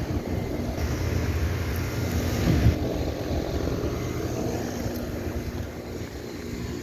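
Outdoor air conditioner condensing unit running: a steady low compressor hum under fan noise, with a louder rush of air between about one and three seconds in.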